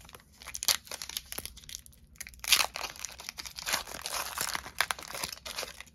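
Foil wrapper of a Pokémon booster pack being torn open and crumpled by hand: a run of sharp crackles and rustles, loudest about two and a half seconds in.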